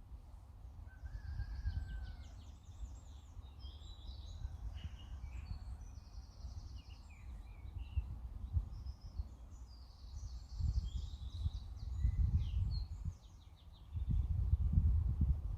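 Small birds singing and trilling on and off, over wind rumbling on the microphone in gusts that grow stronger toward the end.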